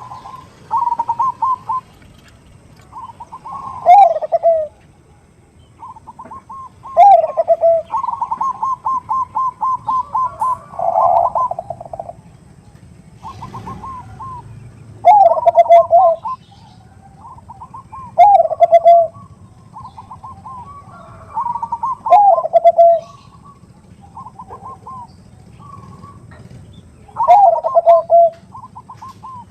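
Zebra doves (Bangkok perkutut) cooing in repeated phrases. Each phrase is a run of quick stuttering notes, and many end in a lower, drawn-out note that falls in pitch. Near the middle comes one long run of about a dozen quick notes.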